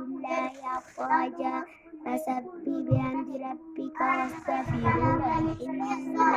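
A young girl reciting the Quran aloud in a melodic chant. There is a short low bump about three seconds in and a longer low rumble about five seconds in.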